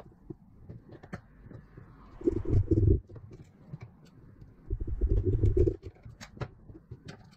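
Small clicks and taps of a metal AK V3 airsoft gearbox shell and its parts being handled and pressed together. Two louder, low, pulsing rumbles, each about a second long, come about two and five seconds in.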